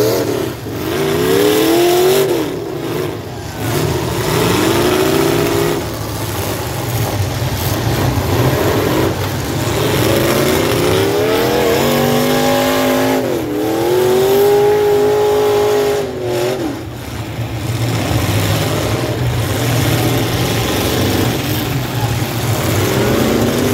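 Demolition derby cars' engines revving hard and easing off again and again, several cars running at once over a steady rumble.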